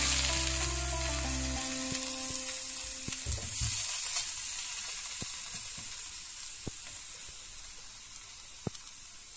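Marinated beef steaks sizzling on the hot, preheated air-fryer basket, a steady hiss that slowly fades. There are a few light clicks of metal tongs against the basket.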